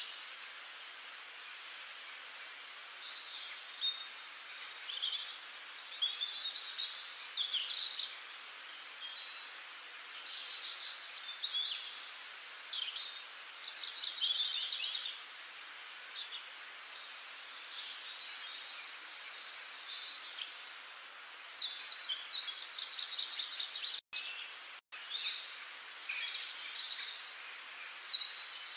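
Several wild birds singing, a mix of short chirps and rapid trills over a steady background hiss. The sound cuts out completely twice, very briefly, about three-quarters of the way through.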